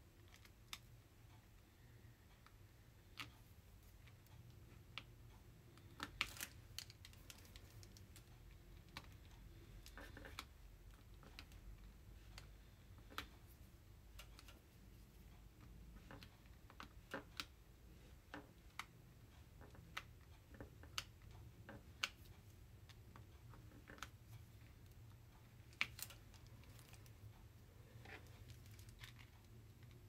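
Irregular small clicks and taps of a diamond painting drill pen picking round drills out of a plastic tray and pressing them onto the canvas, over a low steady hum.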